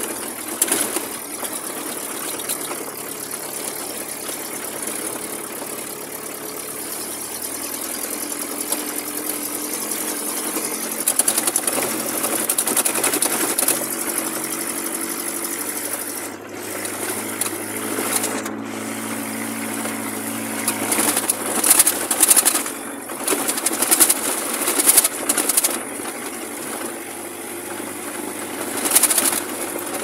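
Jeep engine running as it drives over a sandy desert track, heard from inside the cab, with loud bursts of noise in the second half.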